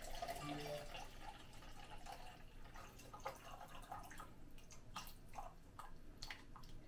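Water poured from a plastic bottle into a shaker cup: a faint trickle, with a few drips in the second half.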